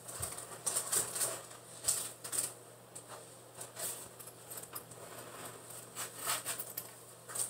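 Scattered light clicks, taps and rustles of small items and packaging being handled on a table.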